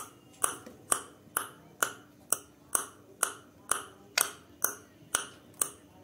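Sharp clicks repeating evenly, about two a second.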